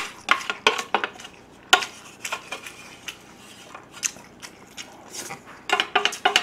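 A utensil scraping and clinking against the inside of a yellow metal lunch box tipped up to the mouth, working out the last grains of rice. The short clicks come irregularly, with a quick cluster of them near the end.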